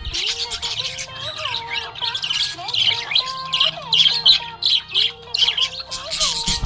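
Budgie chirping in a rapid, continuous chatter, set over an instrumental music backing with held melodic notes and a low hum.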